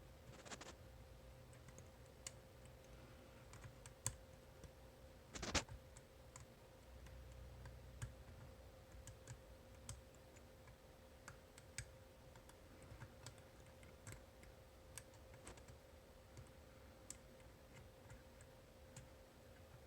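Faint, irregular small clicks of a homemade pick turning the rotating disks inside an Abloy Classic disk-detainer cam lock, with a louder burst of clicks about five and a half seconds in, over a faint steady hum.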